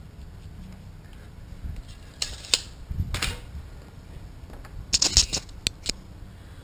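Handling noise from tools and parts being moved by hand: a few sharp clicks and rattles in two short bursts, about two seconds in and again about five seconds in.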